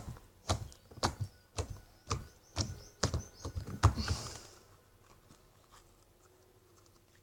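Soft homemade slime squeezed and worked in the hands, making sharp clicks and pops about twice a second; they stop about four seconds in.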